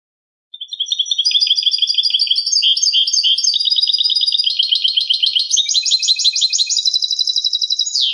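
European goldfinch singing one long, unbroken phrase of fast twittering notes and trills, starting about half a second in and ending on a quick falling note.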